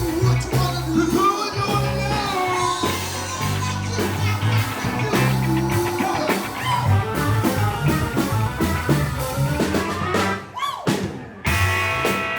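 Live funk band playing an instrumental stretch with a bass line and drums; about ten and a half seconds in the band drops out briefly, then comes back on a held chord.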